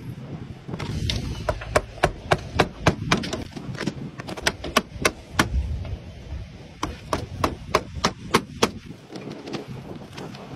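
Hammer driving nails into roof slates: three runs of sharp strikes, about three a second, with short pauses between runs.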